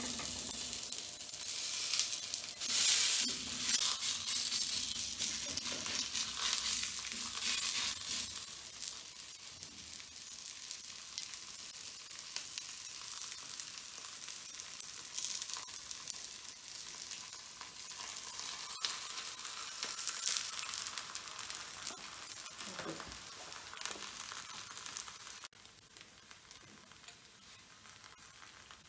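Rice-flour vegetable roti sizzling and crackling in oil on a hot tawa. The sizzle is loudest for the first several seconds, settles to a steadier hiss, and drops further near the end.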